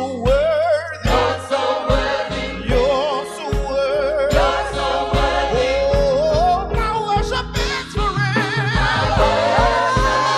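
Gospel song: a lead voice singing with wide vibrato, with choir voices, over a band with bass and drums.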